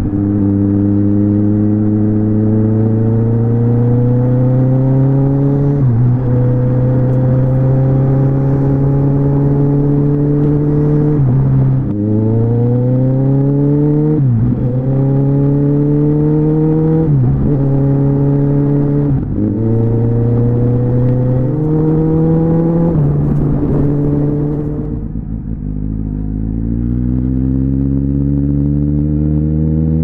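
Kawasaki Z1000 inline-four running through a Yoshimura carbon-fibre 4-into-1 exhaust under way, with a section cut out of the stock line. The engine note climbs under acceleration and drops at each gear change, about seven times. Near the end the revs fall off and the engine is quieter, then it pulls up again.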